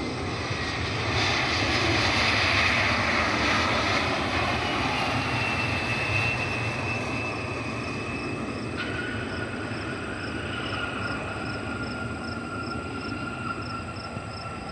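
Regional jet airliner passing on its landing approach: a broad engine roar that swells to its loudest a couple of seconds in and then eases, with a high engine whine slowly falling in pitch.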